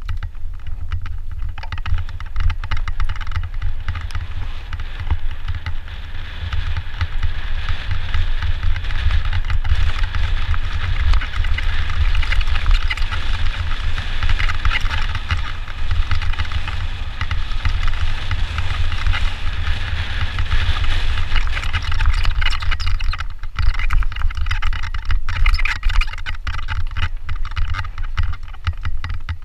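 Mountain bike riding fast down a dirt singletrack: tyres rolling and crunching over the trail and the bike rattling and ticking, with heavy wind rumble on the camera's microphone. The trail noise eases briefly about three quarters of the way through, then picks up again.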